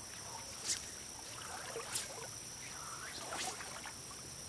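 Legs in waders sloshing through shallow creek water in slow wading steps, with three soft swishes spaced about a second and a half apart. A steady high insect buzz runs underneath.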